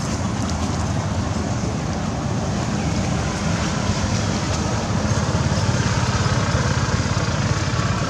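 Steady low rumble of wind buffeting the microphone, swelling slightly about five seconds in.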